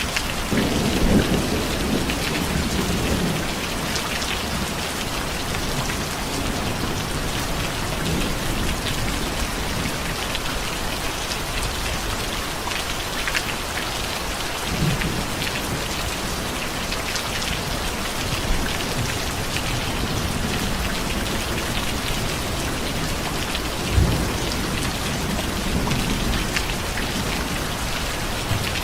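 Steady rain falling, with thunder: a low rumble in the first few seconds and short low thunder thumps later on.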